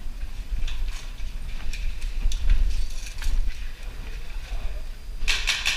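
Footsteps on a debris-strewn floor, with scattered clicks and a steady low rumble. Near the end comes a quick burst of about five airsoft gun shots.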